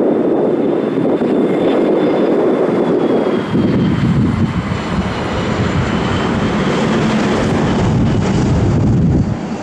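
McDonnell Douglas MD-82 jet airliner on landing approach, its two rear-mounted Pratt & Whitney JT8D turbofans making a loud, steady jet noise. A faint high whine falls slowly in pitch as the aircraft passes.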